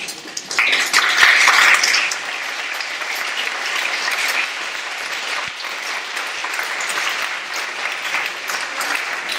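Audience applauding, loudest in the first couple of seconds, then a steady clapping.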